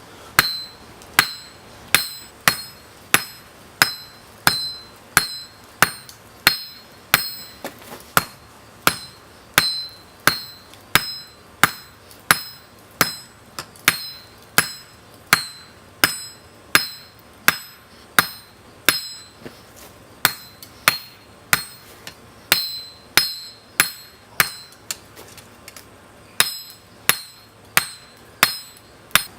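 Blacksmith's hammer forging hot spring steel on an anvil: a steady rhythm of blows, about two a second, each with a bright metallic ring. The hammering breaks off briefly near the end, then resumes.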